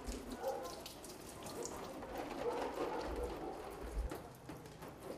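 Water spraying from a garden hose onto a silkscreen-printing screen, washing out the freshly exposed photo emulsion to develop the stencil.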